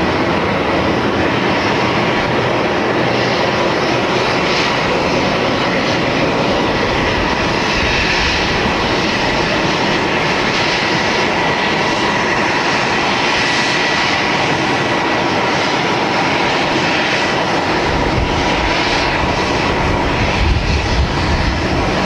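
AH-64D Apache attack helicopters flying over, their twin turboshaft engines and rotors making a steady loud noise with a thin, steady whine; a deeper rumble builds near the end.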